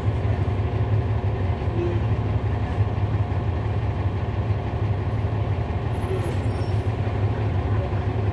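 Cummins ISL9 diesel engine of a 2011 NABI 40-SFW transit bus, heard from inside the cabin, running with a steady low drone.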